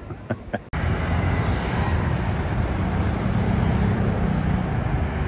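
A few faint clicks, then steady city street traffic noise cuts in abruptly under a second in: a continuous rumble and hiss of passing motor vehicles.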